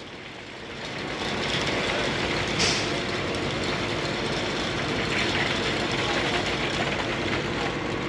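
Concrete boom pump truck running and pumping concrete out through the end hose: a steady engine-and-pump noise that grows louder about a second in, with a brief hiss a couple of seconds later.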